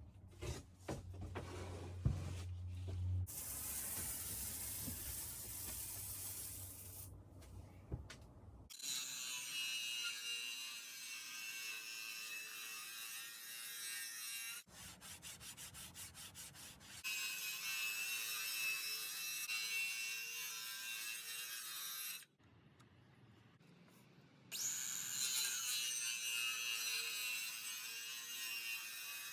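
Rubbing and scraping on plywood sheets in several short stretches that start and stop abruptly. Midway there is a run of quick, even strokes.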